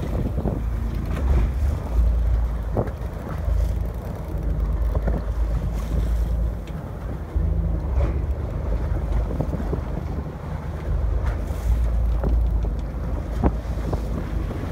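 Wind buffeting the microphone in a heavy, uneven low rumble, over sea water washing against a boat, with a few faint knocks.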